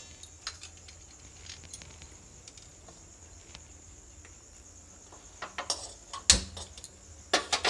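Quiet stretch of faint handling clicks over a thin steady high-pitched whine, then a sharp click about six seconds in as a hand-held spark gas lighter is struck to light the gas stove burner, with a few more clicks near the end.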